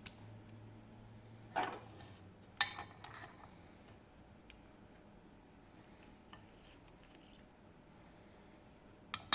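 Small metal clicks and clinks of a DOM Plura lock being taken apart by hand: two sharp clicks a second apart about two seconds in, a few lighter ones later and another near the end, with quiet handling between.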